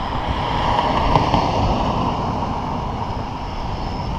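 Rushing wind and road noise heard from a moving bicycle, with tyres rolling on asphalt. It swells about a second in, then eases.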